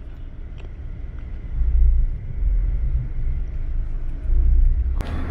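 Low, steady rumble of a moving Ashok Leyland sleeper coach heard from inside, swelling louder twice, with a brief click near the end.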